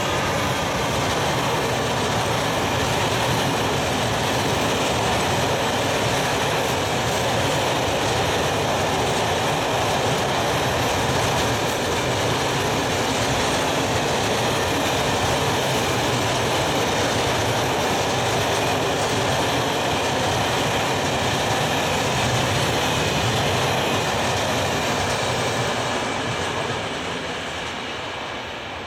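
Long freight train of loaded log wagons behind an Sr1 electric locomotive rolling past close by: a steady loud rumble and clatter of wheels on rail, fading near the end as the last wagons pass.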